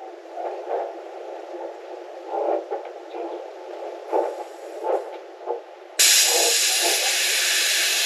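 Faint scattered knocks of handling, then about six seconds in a loud steady hiss of high-pressure air starts suddenly as the air tank's valve is opened and air rushes through the fill line of a PCP air rifle.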